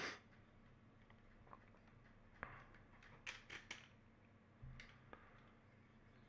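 Near silence: quiet room tone with a few faint clicks and taps of small plastic parts being handled, in a short cluster a little after the middle.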